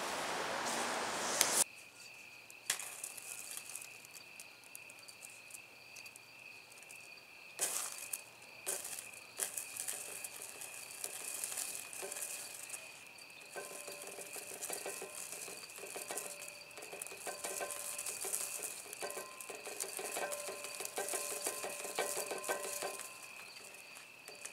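Magnesium shavings burning with a crackling sizzle, over a steady chirping of crickets. A louder hiss from a burning pile at the very start cuts off after about a second and a half.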